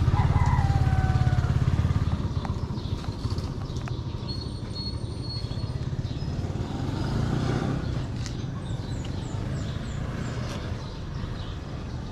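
A motor vehicle's engine running, loudest in the first couple of seconds and then easing off.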